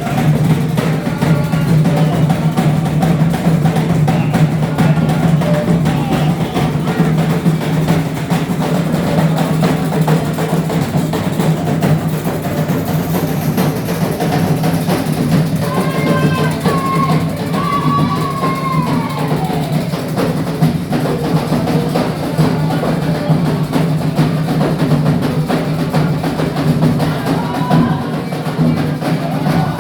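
Percussion-led music with fast, dense drumming over a steady low drone. About two-thirds of the way through, a pitched sound slides downward.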